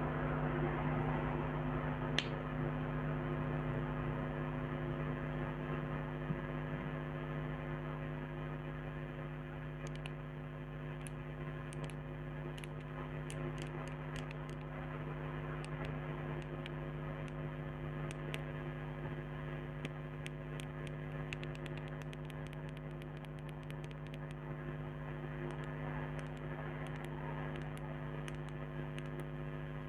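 Steady electrical hum with many overtones from an old microphone. Light fingernail taps on cosmetic packaging come in about ten seconds in, scattered at first and then quick and dense further on.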